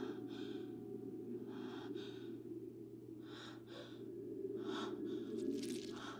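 A young woman gasping in pain, with short, shaky breaths coming every second or so over a low steady hum.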